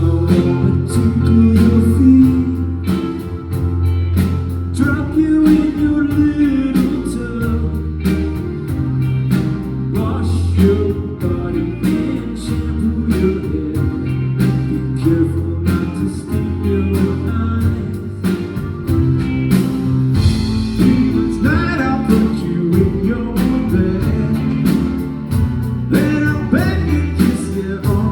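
A live band playing a pop-rock song, with drums keeping a steady beat under bass, guitar and keyboards, and singing over it.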